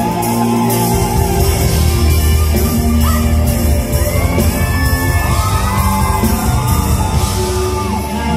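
Live concert music: a band playing with sustained bass notes while a woman sings into a handheld microphone.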